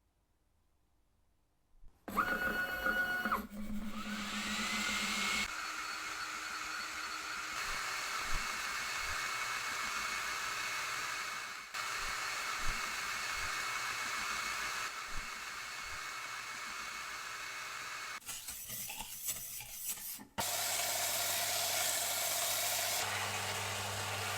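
Power tools running: a brief whine, then a motor whirring up to speed with a rising whine and settling into a long steady rasping run. Near the end the sound changes to another steady run with a low hum.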